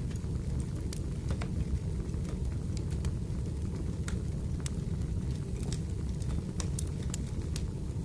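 Wood fire burning: a steady low rumble with sharp crackles and pops at irregular intervals.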